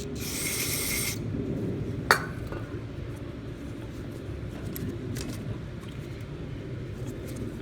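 Aerosol spray can hissing in one burst of about a second as cleaner is sprayed onto the dirty carburetor linkage of a Kohler mower engine. A single sharp click follows about two seconds in.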